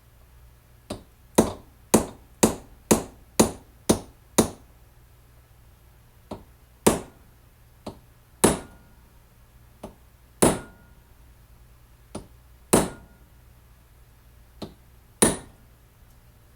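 Hammer blows on metal. First comes a quick run of eight strikes, about two a second, then five pairs of a light tap followed by a harder blow, some of them with a short ring.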